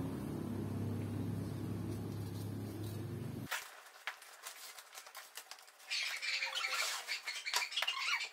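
A steady low hum for the first few seconds that cuts off abruptly, then scissors cutting through a cardboard box: scattered clicks and a dense crackling, scratching stretch of cardboard near the end.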